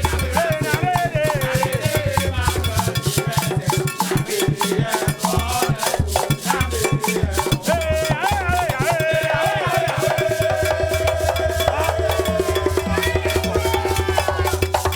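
Upbeat band music with dense, even shaker and drum strokes, a pulsing bass line and a wavering melody line over the top.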